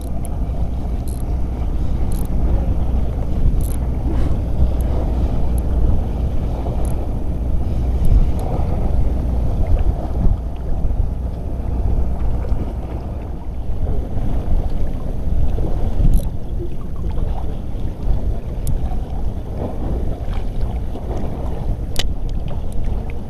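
Steady low rumble of wind on the microphone over open sea water, with a few short sharp clicks scattered through, the clearest about two-thirds of the way in and near the end.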